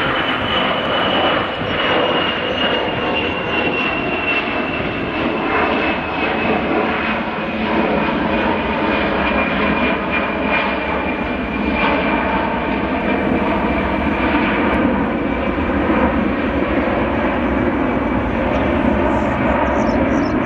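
Boeing 747-200 freighter's four jet engines at takeoff power during climb-out: a steady, loud roar with a high whine that slowly falls in pitch as the aircraft moves away.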